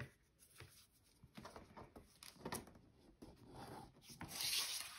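Hands handling a stitched leather strap with a metal grommet through it, making soft rubbing and small clicks, with a louder brushing rub near the end.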